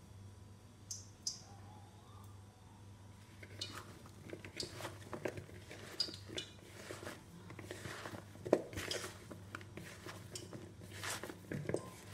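A hand tossing and squeezing seasoned raw potato strips in a plastic bowl: irregular soft squishing and rustling with light knocks against the bowl, starting a few seconds in, over a low steady hum.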